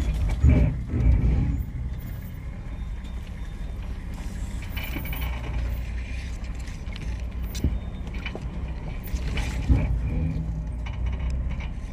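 Off-road 4x4 crawling slowly over rocks, its engine running low and steady, with a few sharp knocks from the vehicle working over the obstacle.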